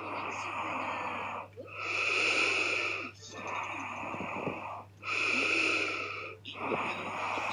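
A woman snoring loudly in her sleep: two loud snores about three seconds apart, with quieter breaths between them.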